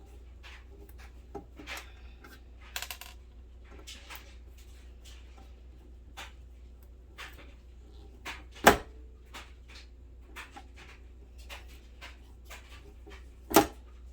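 Scattered small clicks and metallic clinks of screws, tools and parts being handled while a vintage Talk-a-phone office intercom is unscrewed and taken apart. Two louder sharp knocks come about two-thirds of the way in and again near the end.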